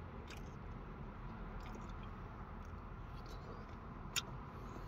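Faint chewing and mouth sounds of someone eating hot mashed potato, popcorn chicken and gravy, with a few soft clicks; the sharpest, about four seconds in, is a plastic spoon knocking into the plastic cup.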